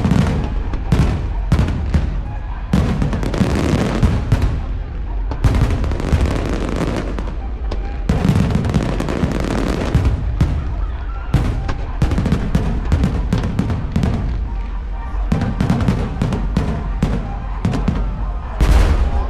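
Aerial fireworks going off in quick succession: many sharp bangs and booms, one after another, with crackling between them, for the whole stretch.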